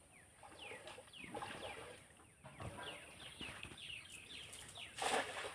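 Faint birds chirping over and over in short falling notes. About five seconds in comes a brief splash, a cast net landing on pond water.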